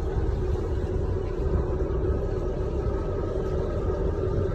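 Tour motorboat's engine running steadily while underway, a constant low rumble with a steady hum.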